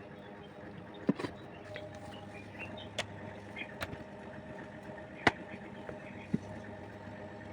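A steady engine or motor hum, with sharp knocks and clicks at irregular moments, the loudest about five seconds in.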